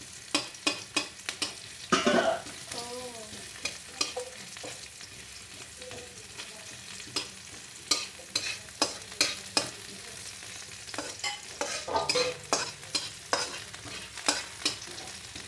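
Onions sizzling in hot oil in a pan while a spatula stirs them, scraping and tapping against the pan in a run of quick clicks.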